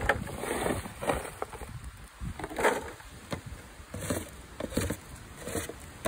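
A dustpan-style scoop scraping over a plastic tarp, with loose cycad seeds rattling as they are scooped up and tipped into a plastic crate, in several separate bursts.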